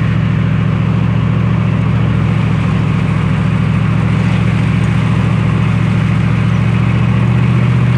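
Truck driving along at a steady speed, heard from inside the cab: a steady low engine hum with tyre and road noise over it.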